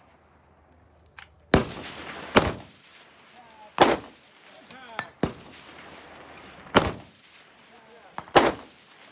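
Precision rifle fired repeatedly: about six sharp, loud shots spaced roughly one to one and a half seconds apart.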